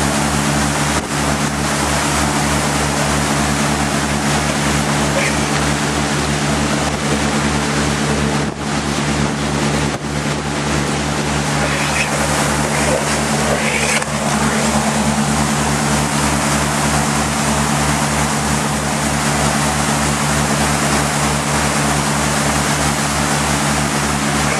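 Motorboat engine running steadily at speed, a constant low drone with an even pulse, over the continuous rush of water churned up by the hull.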